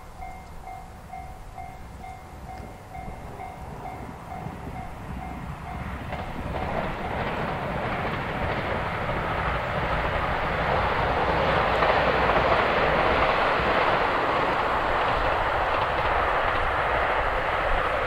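Japanese level-crossing warning bell ringing at about two strikes a second, then a JR Hokkaido 261 series diesel limited express train approaching and passing over the crossing. The train's noise grows from about six seconds in and stays loud, covering the bell.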